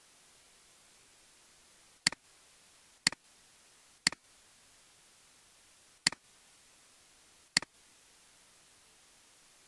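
Five computer mouse button clicks, each a sharp double click-clack, about two, three, four, six and seven and a half seconds in, over a faint steady hiss.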